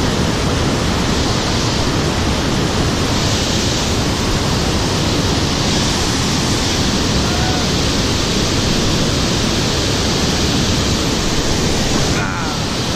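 Steady, loud rush of fast-flowing river water below a dam.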